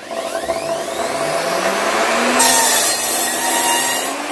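Electric mitre saw started up, its motor whine rising as the blade spins up to full speed. About two and a half seconds in, the blade is lowered into a piece of timber and cuts through it for nearly two seconds, with the motor winding down at the very end.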